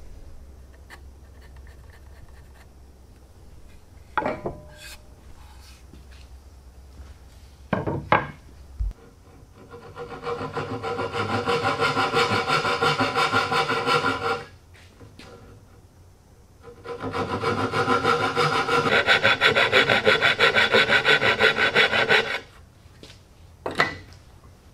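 Hand saw cutting into a board held in a vise, in two long bouts of quick, even strokes, with a couple of wooden knocks before them and one more near the end.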